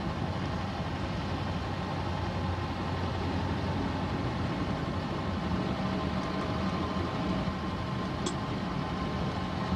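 Steady running noise of a car's engine and road noise, with a low hum throughout and one short high tick about eight seconds in.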